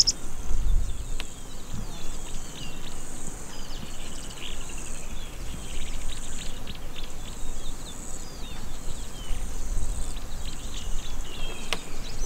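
Savanna insects buzzing steadily in a high, pulsing drone, with scattered short bird chirps and a low rumble underneath.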